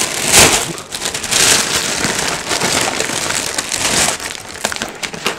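Food-delivery packaging being torn open by hand: continuous crinkling and crackling, with louder rips about half a second in, near a second and a half in, and around four seconds in.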